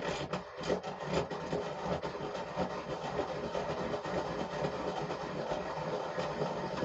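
Electric pencil sharpener grinding the end of a carbon fibre arrow shaft: a steady motor hum under a continuous rasping grind.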